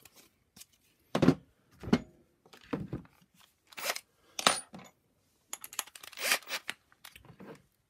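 Hard plastic vacuum-cleaner nozzle parts knocking and clattering on a wooden workbench as they are handled: a run of sharp, irregularly spaced knocks and rattles.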